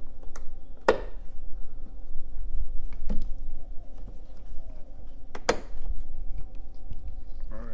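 The plastic battery cover in a Mercedes-Benz GLK350's engine bay being handled: two sharp plastic clicks, about a second in and again about five and a half seconds in, with a couple of fainter knocks between.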